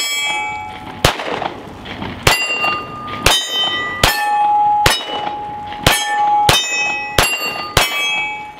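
Glock 43X subcompact 9mm pistol fired about ten times at a steady pace, roughly one shot a second. Each shot is followed by steel targets ringing with a clang.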